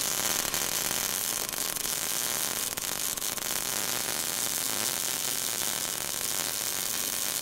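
Steady crackling hiss like a welding arc, laid as a sound effect under the sparking welding-torch logo.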